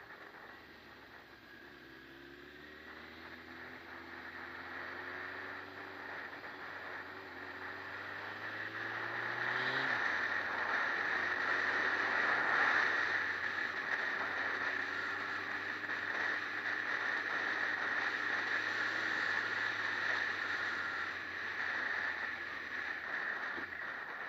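Motorcycle engine running under way, with wind and road noise. The engine note climbs slowly and drops at a gear change about ten seconds in, then holds steady while the rushing noise grows louder.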